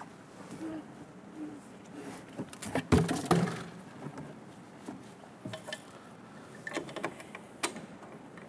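Knocks and rubbing of a new cab air filter being pushed by hand into its round plastic housing, the loudest knocks about three seconds in, followed by a few sharper clicks as the hinged filter cover is swung shut and pressed closed.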